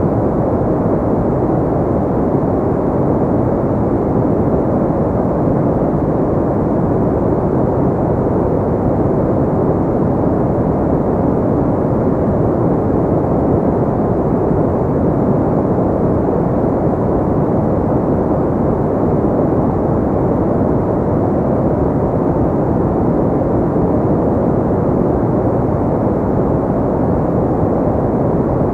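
Steady, unchanging relaxation noise of the kind sold as white noise for sleep, though it sounds deep and rushing, with little high hiss.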